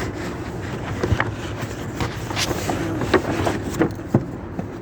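Steady hum of city street traffic, with a handful of sharp clicks and knocks close by, scattered about every half second to second.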